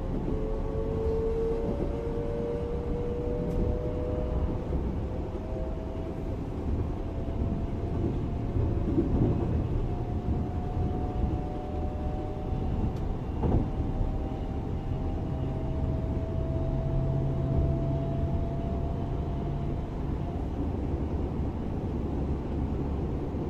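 Class 425 electric multiple unit running under power, its traction drive whining in several tones that rise slowly in pitch as the train gathers speed, over a steady rumble of running on the rails. A single sharp knock sounds about halfway through.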